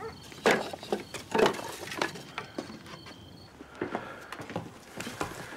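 Crickets chirping at night, with a run of sharp knocks and clicks over the first couple of seconds. The chirping stops about three seconds in.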